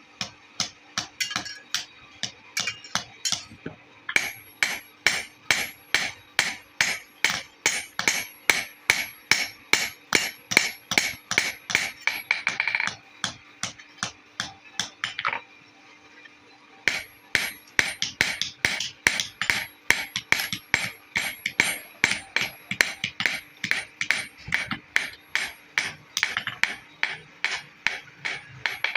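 Hand hammer striking metal in a steady rhythm, about two to three blows a second, each blow ringing. The hammering stops for a few seconds near the middle, then picks up again at the same pace.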